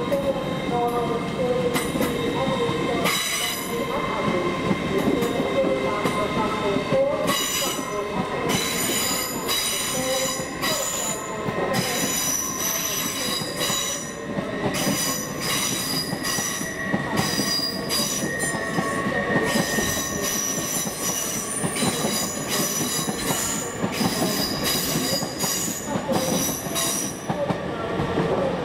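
Train moving slowly through a station: a steady rumble with repeated high-pitched metallic wheel squeals that change pitch and come and go.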